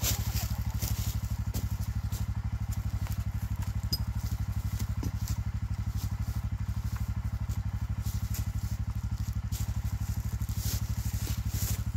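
ATV engine idling steadily, a low even pulse that does not change.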